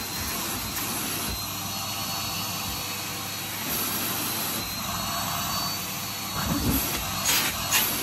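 Numatic Henry canister vacuum cleaner running steadily, a rushing suction noise with a faint high whine on top. A few knocks near the end as the metal wand and attachments are handled.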